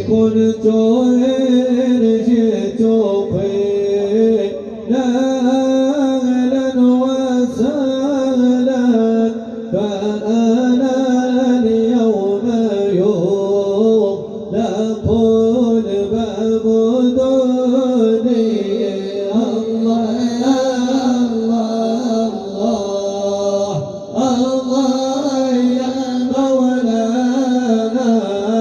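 Arabic devotional chant in praise of the Prophet (madih nabawi): voices singing long, drawn-out melodic lines without pause.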